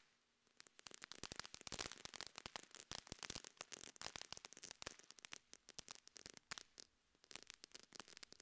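A firework fountain crackling, heard faintly: a dense, irregular run of sharp crackles and pops that starts about half a second in, with a brief lull about seven seconds in.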